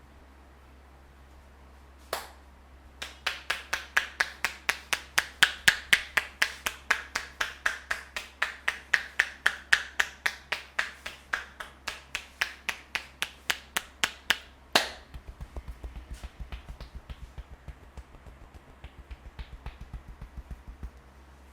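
Barber's hands tapping and clapping rhythmically on a head during an Indian head massage. After one sharp clap, a steady run of crisp claps follows at about four a second and ends in a louder clap; then come lighter, quicker pats with a dull thud under them.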